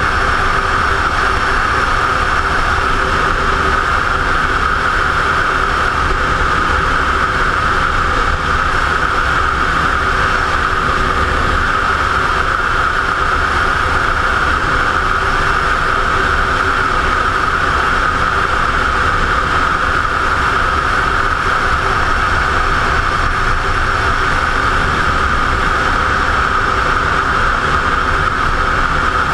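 Motorcycle cruising at a steady speed: the engine holds one even note under a loud, constant rush of wind over the helmet-mounted microphone.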